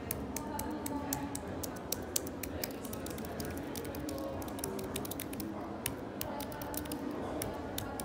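Apple Magic Keyboard with Touch ID being typed on: quick, irregular clicking of its low-travel scissor-switch keys, several keystrokes a second.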